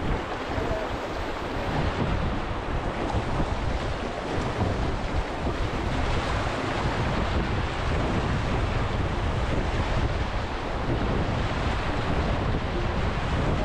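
River rapids rushing and churning around a canoe as it runs whitewater, a steady roar of water with wind buffeting the microphone.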